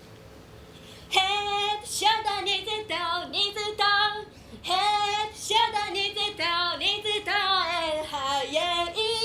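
A woman singing solo in a high, wavering voice with no instruments, starting about a second in.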